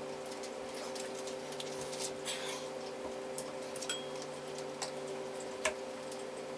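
Faint, irregular ticks and short rustles of mirrored window film being trimmed along the frame with a craft knife and its excess strip peeled away, with one sharper click near the end, over a steady low hum.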